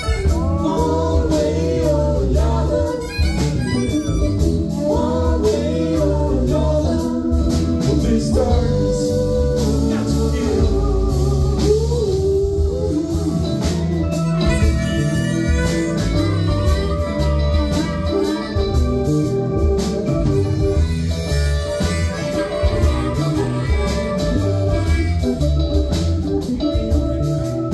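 Live blues-rock band playing: a harmonica played cupped against a vocal microphone, bending and wavering notes, over drums, bass, electric guitar and keyboards.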